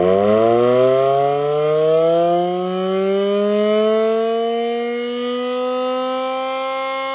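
Federal Signal Model 2T electromechanical siren winding up from a start. Its wail rises quickly, then levels off into a steady tone about halfway through.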